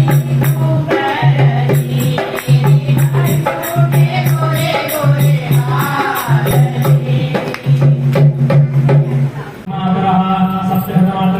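Devotional music: singing over a steady pulse about once a second, with rhythmic jingling percussion. Near the end it changes to a different section with a sustained drone.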